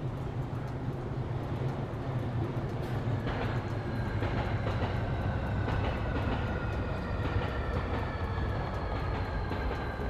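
Japanese pygmy woodpecker tapping at tree bark to find larvae, as faint repeated taps. A louder steady low rumble lies underneath, with high whining tones that slowly fall in pitch from about three seconds in.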